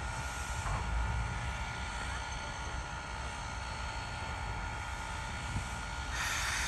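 Steam locomotive Clover Valley Lumber Co. #4 at work, a steady low rumble with a hiss of steam. A louder hiss comes in near the end.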